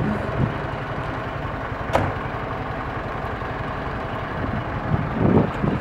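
Fire-rescue truck's diesel engine idling steadily, with a single sharp knock about two seconds in as the cab door shuts, and a brief louder swell near the end.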